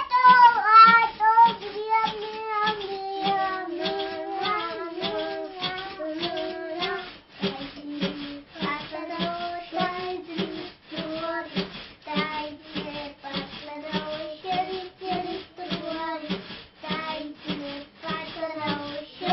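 A child singing a melody, over a steady beat of sharp taps about two to three times a second.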